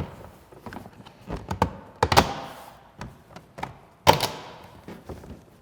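UTV's plastic front hood being set back on and pressed into place: a series of hollow thunks and clicks, the loudest about two seconds in and again about four seconds in.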